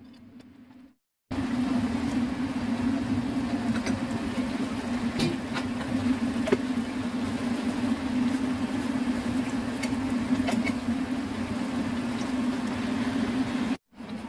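Thick tofu and minced-chicken sauce simmering in an open frying pan on the hob, with scattered small pops over a steady low hum. It starts abruptly about a second in and stops just before the end.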